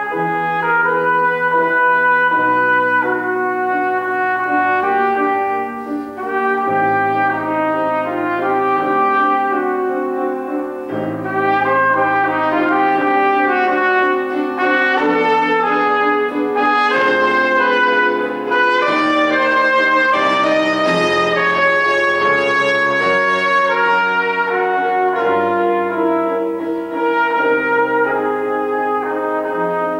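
Trumpet and grand piano playing a classical piece together, the trumpet carrying a melody of sustained notes over the piano accompaniment.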